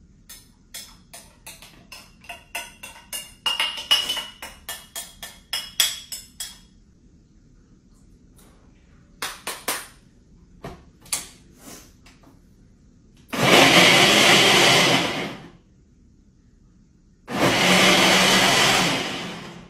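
Countertop blender running in two short bursts of about two seconds each, one past the middle and one near the end; these are the loudest sounds. Before them comes a quick run of clinks and taps, with a few more a little later.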